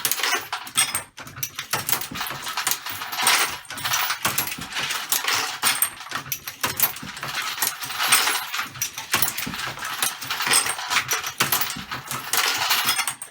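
Dillon XL-650 progressive reloading press being cycled with its roller handle, loading ammunition. Metallic clinking and clicking of brass cases and the press's moving parts comes in repeated bursts every couple of seconds, one per stroke.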